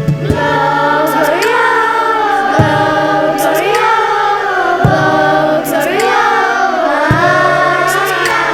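A school choir singing a melody over a steady low accompanying note, with a sharp hit about every two seconds.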